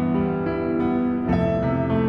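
Instrumental TV-series theme music: slow, held chords, with a new chord coming in a little over a second in.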